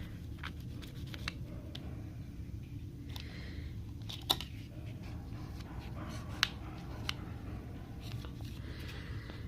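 Small clicks and taps of a phone and tools being handled on a workbench, two of them sharper, with a few soft scratchy swishes, over a steady low hum.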